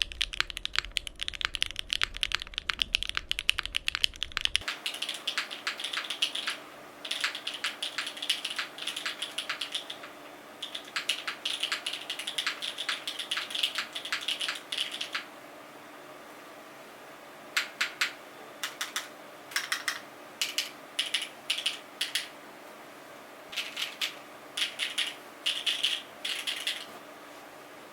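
Typing on a Cycle7 mechanical keyboard with stock Bsun Tai Chi switches and GMK keycaps, on an aluminium plate with gasket mounting and no foam. Fast continuous typing at first, over a low hum that stops about five seconds in, then runs of keystrokes broken by short pauses, and in the second half single presses and short flurries.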